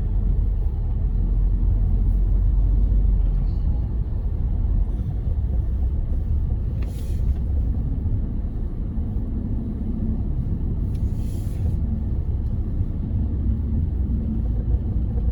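Steady low rumble of a car's engine and tyres heard from inside the cabin while driving on a snowy road, with two brief hissing swishes about seven and eleven seconds in.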